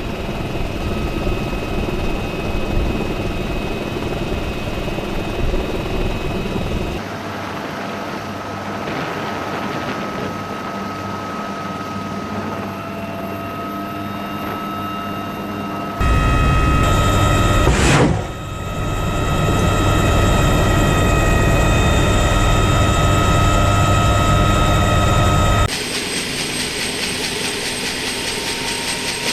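Military helicopter's turbine engines and rotor running steadily, with a fixed whine over a low drone. The sound changes abruptly several times, as at edit cuts, and is loudest in a stretch past the middle. No gunfire is distinct.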